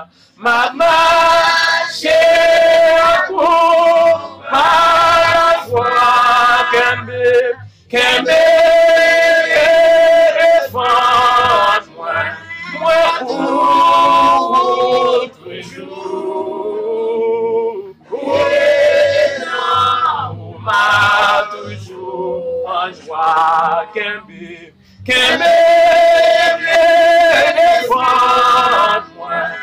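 Hymn singing: voices singing long held phrases with vibrato, breaking off briefly about eight seconds and again about twenty-five seconds in.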